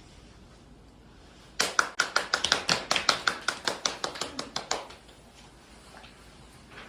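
A bell rung rapidly, about seven strikes a second, starting about a second and a half in and lasting roughly three seconds, the strokes growing weaker near the end.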